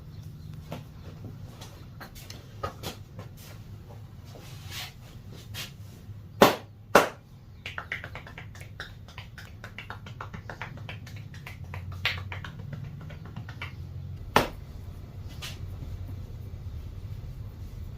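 A barber's hands working during a head and back massage: scattered light taps, pats and clicks, with two loud sharp smacks in quick succession about a third of the way in and another later, over a steady low hum.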